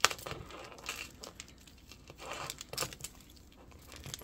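Handling noise: a sharp click at the start, then scattered small clicks and light rustling as a beaded necklace with acrylic pendants is turned over in the hands.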